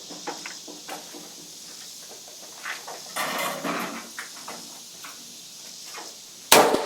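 A single rifle shot about six and a half seconds in, loud and sharp with a long echoing tail, preceded by a few small clicks and knocks.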